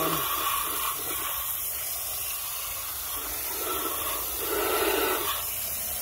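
Water jet from a hose spray nozzle hissing steadily as it washes mud off plastic toy cars.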